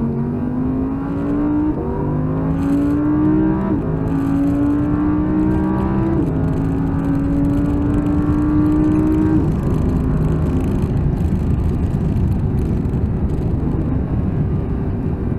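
Audi R8's 5.2-litre V10, heard from inside the cabin under full throttle. The engine note climbs in pitch and steps down at three upshifts, about two, four and six seconds in, then climbs slowly in the last gear. About nine and a half seconds in, the driver lifts off, the engine note drops away and a steady noisy rush is left.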